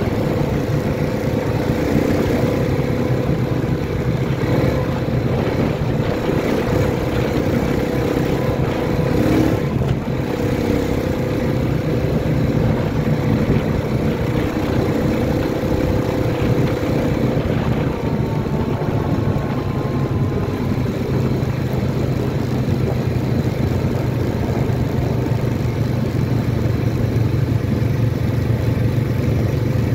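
ATV engine running steadily under way at an even speed, its hum holding the same pitch throughout.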